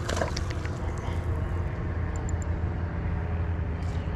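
A fishing rod is cast: a brief swish and a few sharp clicks at the start, over a steady low rumble.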